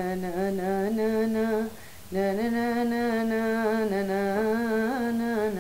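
A woman humming a melody without words in long held notes, in two phrases with a short break about two seconds in: the old folk tune she wants the naat set to.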